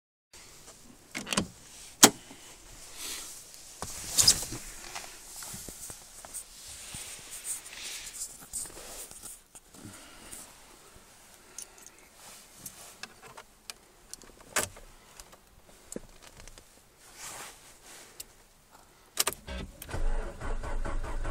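Getting into a parked 1987 Ford Sierra: clicks and knocks from the door latch and door, with the loudest sharp knock about two seconds in, then rustling and keys jangling. Near the end the ignition key is turned and a low rumble begins as the cold start gets under way.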